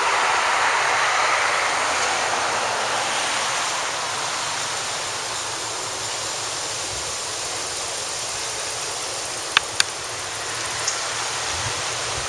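Steady rush of road traffic, with two sharp chip calls from a perched rufous hummingbird close together near the end and a fainter chip about a second later.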